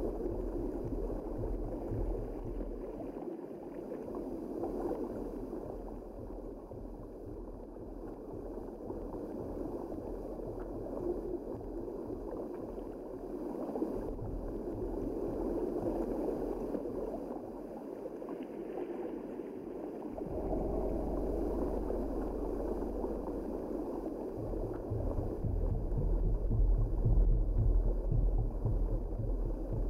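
Underwater ambience: a steady gurgling wash of moving water, with a low rumble that grows louder near the end.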